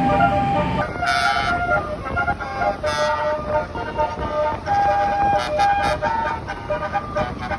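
Bus telolet 'basuri' horn playing a melody: held notes that step from one pitch to the next.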